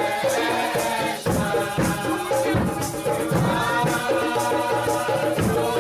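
Music with drums and a shaker keeping a steady beat.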